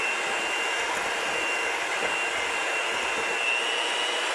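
Electric mixer running steadily with a high whine, beating oil and sugar together to cream them.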